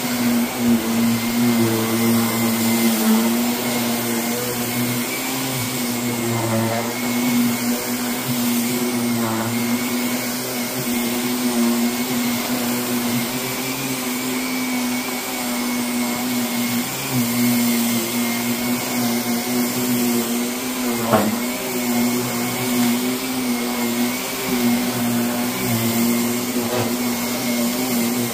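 A vacuum motor runs at a steady pitch, with one sharp knock about 21 seconds in.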